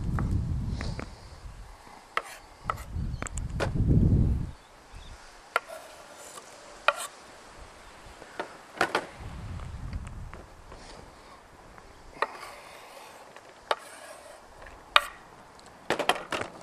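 Kitchen knife chopping green capsicum on a wooden chopping board: irregular sharp knocks of the blade hitting the board, some in quick runs. Bursts of low rumble in the first few seconds and again near the middle.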